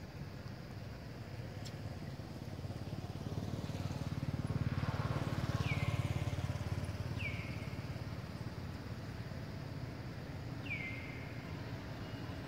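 A motor vehicle passing: a low rumble that swells to its loudest in the middle and then eases off. Over it come three short, high calls, each falling in pitch.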